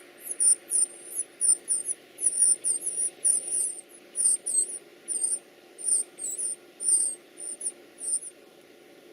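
Baby birds cheeping: rapid, very high-pitched begging calls, two to three a second, that stop shortly before the end, with a faint steady hum underneath.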